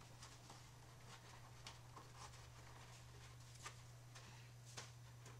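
Near silence: a steady low hum with a few faint light taps and rubs from fingertips pressing a vinyl decal onto a stained wooden board.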